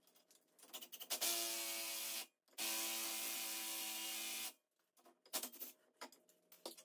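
Cordless impact wrench run twice, about a second and then about two seconds, to pull a new wheel stud into the hub, with light clicks and knocks of handling around the runs.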